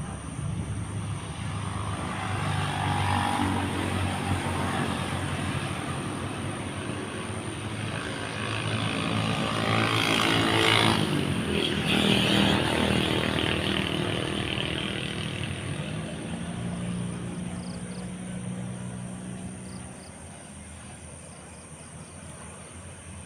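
A passing engine: its hum grows louder to a peak about halfway through, drops in pitch as it passes, and fades away. A steady high insect trill runs underneath.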